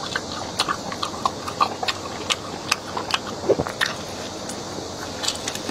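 Close-miked eating sounds of a person biting and chewing cooked beef rib meat off the bone: wet mouth clicks and smacks coming irregularly, several a second.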